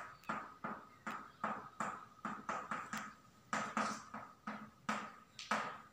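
Chalk writing on a blackboard: a quick, irregular run of short taps and scrapes, about three a second.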